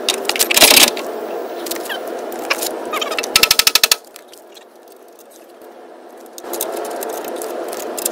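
A mallet knocking a steel winch plate into place inside a Jeep bumper: one loud knock under a second in, then a quick rattling run of strikes around the middle, over a steady hum.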